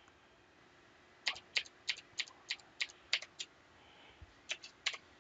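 Computer keyboard keys pressed one at a time, about eight keystrokes at roughly three a second, then three more shortly before the end.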